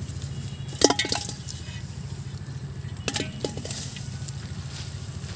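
Fish and hands knocking against an aluminium pot, sharp clinks with a short ring about a second in and around three seconds in, over rustling of dry leaves and net and a steady low hum.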